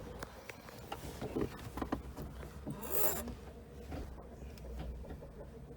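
A zipper pulled once, a short rasp about three seconds in, among light clicks and rubbing from parts being handled.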